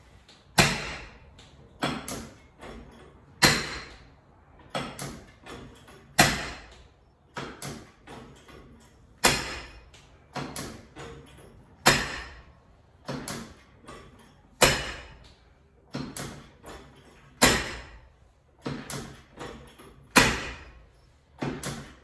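Chiropractic drop table's padded section dropping under the chiropractor's thrusts on the lower back and pelvis, with a sharp clack roughly every three seconds and a softer knock between each pair: a drop-table adjustment being delivered repeatedly.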